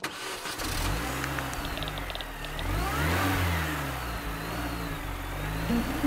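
Car engine revving: it starts abruptly, climbs to a peak about three seconds in and falls back to a lower run.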